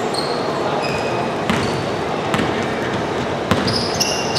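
Basketball game play in a hall: a ball bouncing on the court with several sharp knocks, brief high sneaker squeaks, and a steady background din of the echoing gym.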